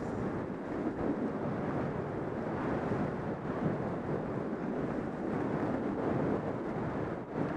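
Wind buffeting the microphone of a skier moving downhill at speed: a steady, gusting rush with no pauses.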